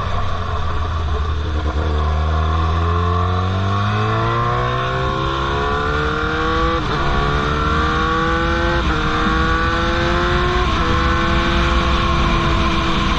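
Straight-piped 2003 Yamaha R1 inline-four pulling away: after about two seconds of a low steady note the engine revs climb smoothly, then it shifts up three times about two seconds apart. Each upshift is a sudden drop in pitch followed by another climb, and the last gear pulls more slowly.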